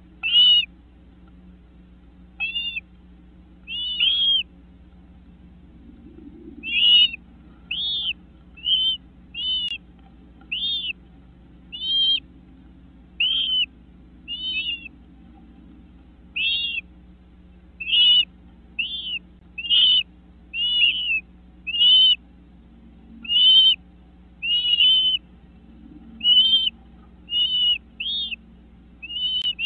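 Great crested flycatchers calling inside the nest box: short, high, clear notes, some given in quick pairs, coming roughly once a second in an uneven run.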